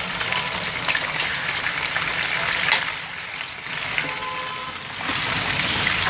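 Raw chicken pieces sizzling in hot oil, a steady hiss with scattered crackles and spits as the pieces are spread around the pot by hand. The sizzle eases a little past the middle and grows louder again near the end.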